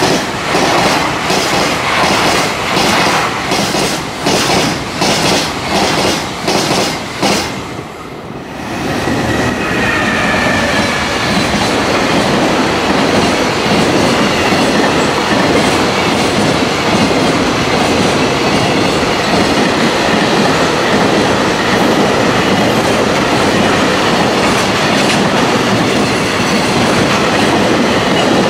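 Freight train container wagons passing close by at speed: for the first several seconds, a loud, regular clickety-clack of wheels over rail joints, about one and a half clacks a second. After a short break about eight seconds in, the passing of a second long freight train follows as a steady, dense rumble of wheels on rails.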